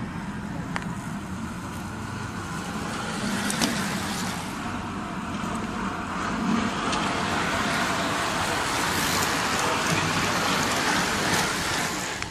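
A bunch of racing bicycles passing close by: tyres hissing on asphalt and chains and freewheels whirring. It grows louder as the riders come near and stops abruptly at the end.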